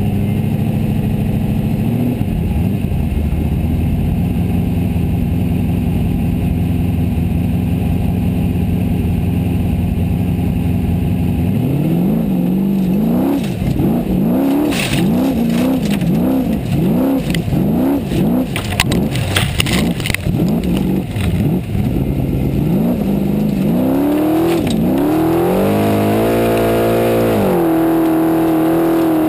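Formula Offroad car's engine heard from inside the cockpit: it holds steady revs for about twelve seconds, then revs hard up and down about once a second while climbing a steep gravel hill. Knocks and clatter break in through the middle of the climb, and near the end the revs rise and hold high.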